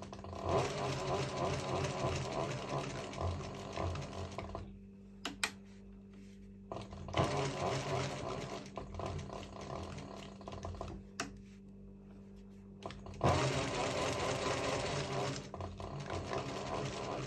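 Pfaff 195 walking-foot (triple-feed) industrial sewing machine stitching leather in three runs of a few seconds each, its needle and feed mechanism rattling rapidly. Between the runs the motor keeps humming steadily, and a single sharp click sounds in each pause.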